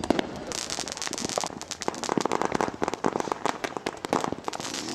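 Fireworks and firecrackers going off in a dense, irregular run of sharp pops and crackles, with a stretch of hiss about a second in.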